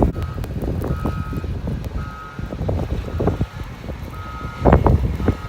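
A truck's reversing alarm beeps about once a second over the low rumble of vehicles, with wind gusts buffeting the microphone. The loudest gust comes near the end.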